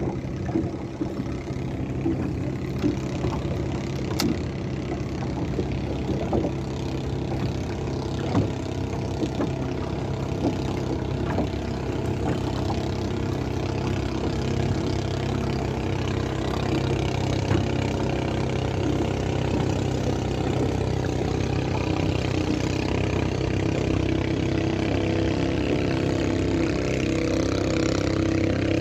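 An engine running steadily at an even pitch, with a few light clicks over it.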